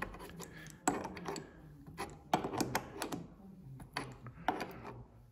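Spanner clicking and scraping against a brass shower-valve fitting in a series of irregular sharp clicks, as a threaded joint sealed with PTFE tape is tightened.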